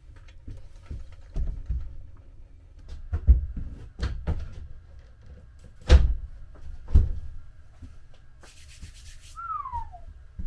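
Knocks, thumps and scraping as a stainless steel drop-in sink is lowered into a countertop cutout and shifted into place, with the loudest knocks about three, six and seven seconds in. A short falling squeak comes near the end.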